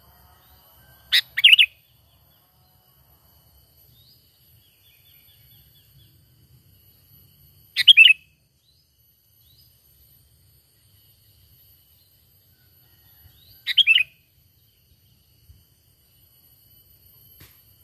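Sooty-headed bulbul calling: three short loud bursts about six seconds apart, each two quick notes, with faint chirps between them.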